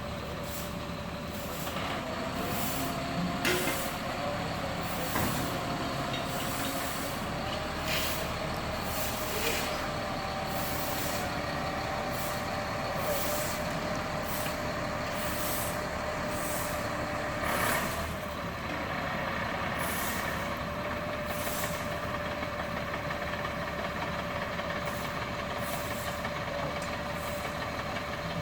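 Heavy truck engine running steadily, its pitch wavering a little, with short bursts of air hiss every few seconds.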